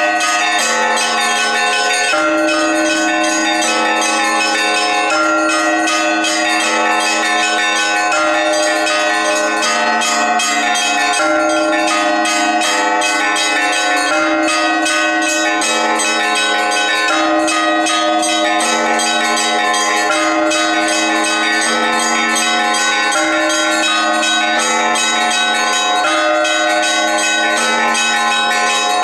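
Orthodox church bells ringing a peal: several bells of different pitch struck in quick succession without a break, their tones ringing on over one another.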